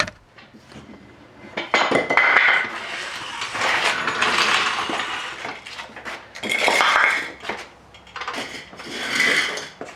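Metal clinking and rasping in four bursts of about a second each, with a faint ring: hand tools working the door-hinge bolts on a GMC squarebody truck.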